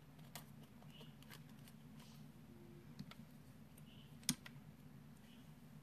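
Near silence with a faint low hum and scattered small clicks, one sharper than the rest about four seconds in.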